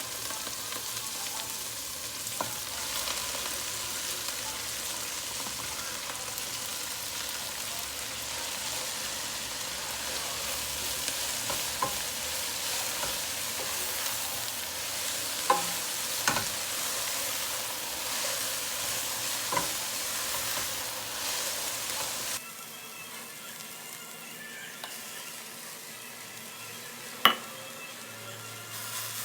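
Food sizzling as it fries in oil in a pan, with occasional clicks and knocks of a utensil against the pan. About three quarters of the way through, the sizzle suddenly drops quieter, and one sharp knock follows a few seconds later.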